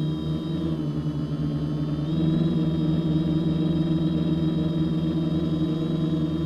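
TBS Discovery quadcopter's four brushless motors (BirdDog 900kv) spinning 10x4.5 props: a steady multi-tone hum with a high whine. It steps up a little in pitch and loudness about two seconds in, as the throttle rises.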